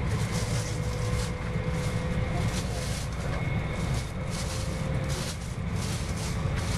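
Cabin noise of a Joetsu Shinkansen Max Toki bullet train running at speed: a steady low rumble with a flickering rush of air and a faint steady whine.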